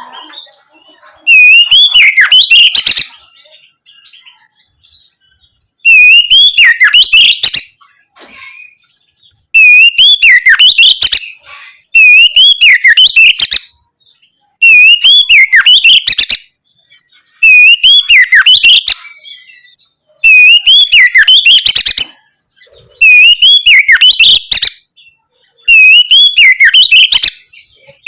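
Oriental magpie-robin (kacer) singing loud, open 'ngeplong' song: about eight similar whistled phrases of a second and a half or so each, with rapid rising and falling sweeps, separated by short pauses.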